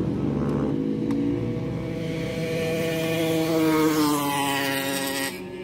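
A motorsport engine revving: its pitch climbs steadily, then drops and falls away near the end.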